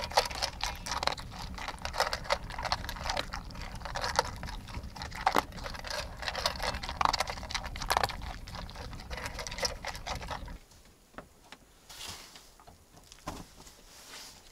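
Quick, irregular footsteps crunching and rustling over the forest floor, with handling rumble underneath. They stop abruptly about ten seconds in, leaving only a few faint rustles.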